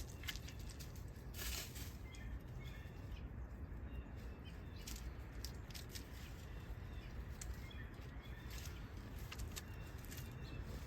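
Outdoor morning ambience of small birds chirping now and then, short high calls scattered through, over a steady low rumble.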